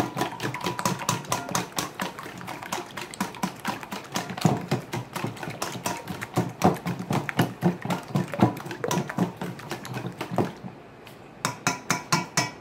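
Wire whisk beating eggs in a stainless steel mixing bowl: fast, continuous rattling clicks of metal wires against the metal bowl. About ten seconds in the whisking stops briefly, then comes a run of sharper, evenly spaced clicks, about three a second.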